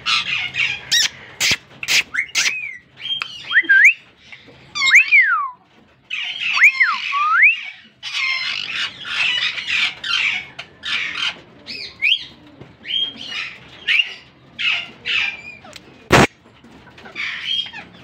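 Aviary parakeets (plum-headed and Indian ringneck) calling over and over, with a mix of sweeping whistles that rise and fall and harsh squawks. There is a single sharp click near the end.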